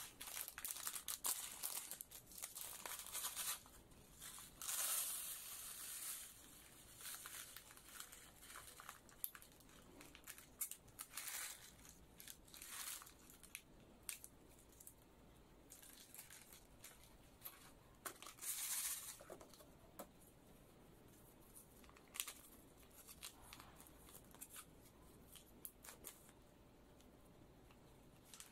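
Foil-lined plastic food sachets being torn open and crinkled by hand, in irregular rustling bursts with small clicks between, while dry rice is poured from a sachet into a plastic meal tray.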